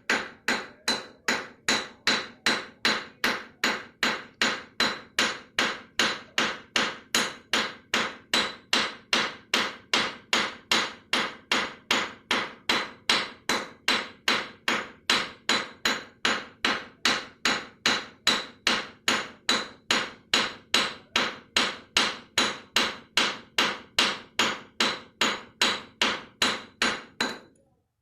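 Steady, even hammer strikes with a metallic ring, about two to three a second, breaking off briefly near the end.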